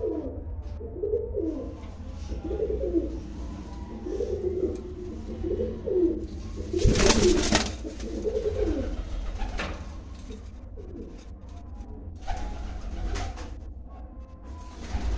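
Domestic pigeon cooing over and over, about one swooping coo a second, with a burst of wing flapping about seven seconds in. After that the cooing stops, and a couple of shorter rustles follow near the end.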